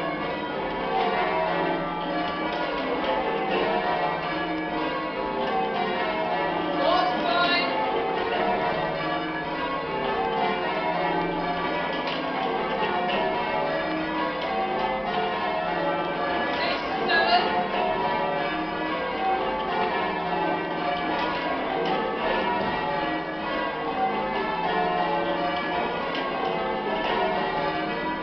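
Church bells of St Botolph, Aldgate being change-rung by a band pulling ropes: a continuous, steady stream of bell strikes following one after another in shifting order.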